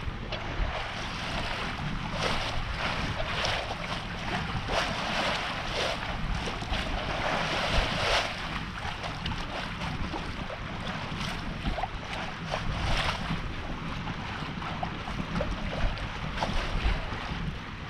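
Water rushing and splashing along the hull of a sailboat moving through the water, rising and falling in irregular surges, with wind rumbling on the microphone.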